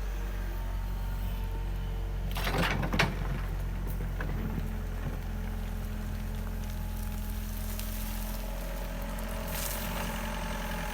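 An engine running steadily at idle, with a brief clatter ending in a sharp knock about three seconds in and a softer rustle near the end.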